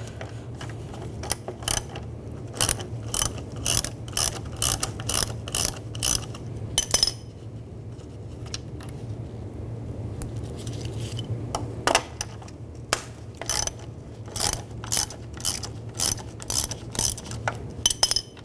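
Ratchet with a 10 mm socket clicking as it backs out two plastic-grille fasteners, in two runs of repeated clicks with a pause of a few seconds between them.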